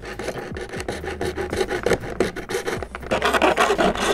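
Hacksaw cutting across a clear corrugated plastic roofing sheet in quick back-and-forth rasping strokes, getting louder about three seconds in.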